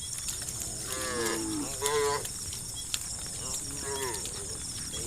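Cows mooing: three moos, the loudest about two seconds in.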